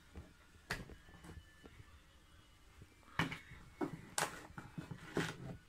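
Handling noise of a large, heavy telescope eyepiece being lifted out of its cardboard box: soft rustling with a few sharp knocks, the loudest a little past four seconds in.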